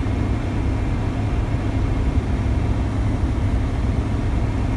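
Steady low rumble of engine and road noise heard from inside the cabin of a moving car or truck.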